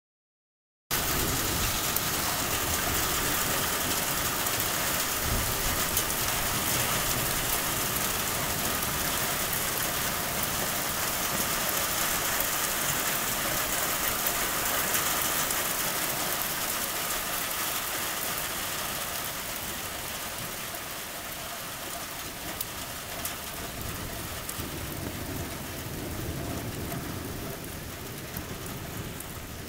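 Steady rain falling, a dense hiss that starts abruptly about a second in and eases slightly in the second half. A low rumble of thunder swells near the end.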